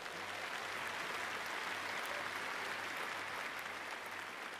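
A large audience applauding in a big hall, the clapping swelling in the first second and starting to die away near the end.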